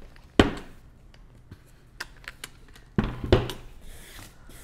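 Wooden gift chest being handled on a glass tabletop. It thunks down once about half a second in and twice more close together about three seconds in, with light taps and clicks between.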